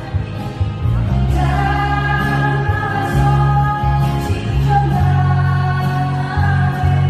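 A song sung with instrumental accompaniment, the voice holding long sustained notes over a steady bass.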